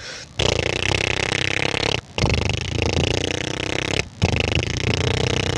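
A young man imitating a Royal Enfield Bullet motorcycle engine with his voice and mouth. There are three long, rumbling engine sounds, each nearly two seconds, with brief pauses between them.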